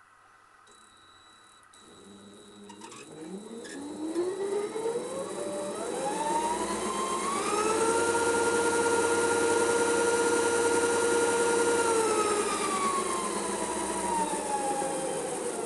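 Chinese mini lathe's motor and toothed-belt layshaft drive speeding up from a standstill, with a rising whine, running at a steady speed for a few seconds, then slowing down with the pitch falling away near the end. A few clicks sound as it starts.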